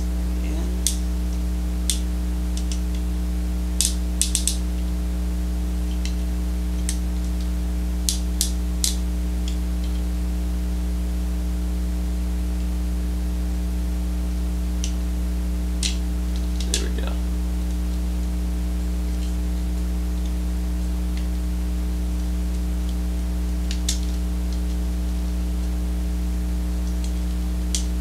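Sharp plastic clicks and snaps from the joints and pegs of a Transformers Animated Jetfire action figure as it is folded into jet mode, scattered singly and in small clusters. Under them runs a steady electrical mains hum.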